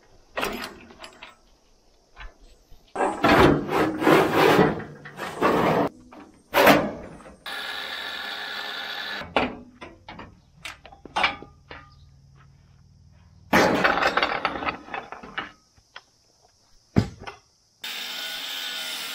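Steel parts clanking and knocking as a rusty frame is taken apart with hand tools, with two steady runs of an electric angle grinder, the second starting near the end.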